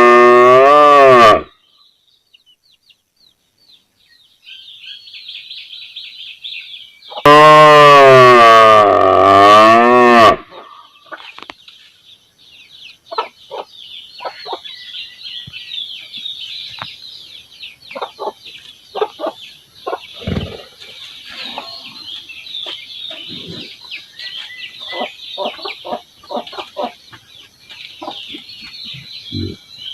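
A cow mooing: a long call ends about a second in, and a second long moo, loud and sliding in pitch, comes from about seven to ten seconds in. After it, chickens cluck in short, quieter calls.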